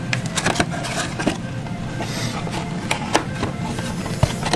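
Cardboard packaging being handled: box flaps and a small carton rustling, scraping and clicking irregularly as hands rummage through a parts box, over a steady low hum.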